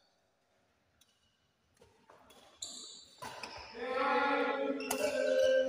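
A badminton rally: a few sharp racket hits on the shuttlecock in a large hall. From about halfway through, a person's voice holds one long, loud, drawn-out call over them.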